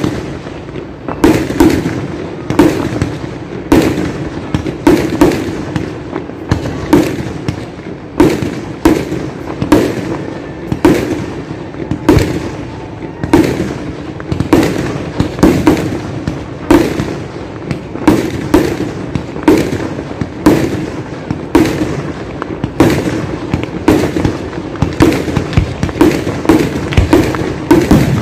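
Aerial fireworks launching and bursting in a steady barrage: sharp bangs follow one another about every half second to a second, each with a short rumble after it.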